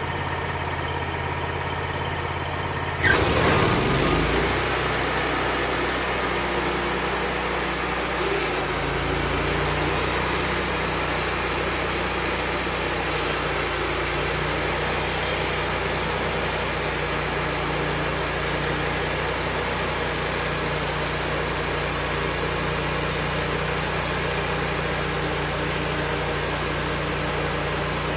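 Wood-Mizer LT35HD sawmill's engine running steadily; about three seconds in it revs up sharply and then carries on at a steady, louder run.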